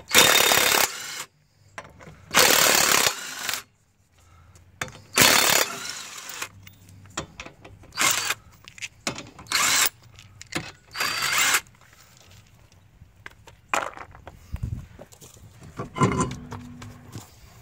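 A power tool driving a 19 mm socket, loosening a car's rear wheel lug nuts. It runs in bursts of about a second each, three longer ones at first, then shorter and sparser ones.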